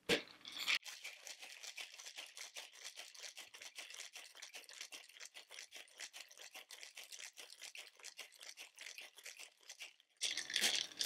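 Ice rattling in a cocktail shaker tin, shaken hard at about five strokes a second for the wet shake of a gin, huckleberry syrup, lime juice and egg white cocktail. Louder knocks at the start and again near the end, where the shaking stops.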